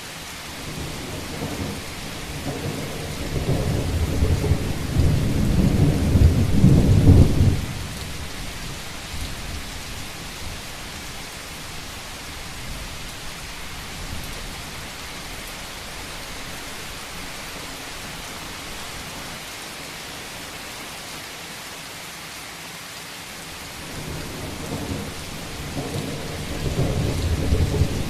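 Steady rain falling on a roof, with deep thunder rumbling: one roll builds over the first seven seconds and cuts off suddenly, and another rises near the end.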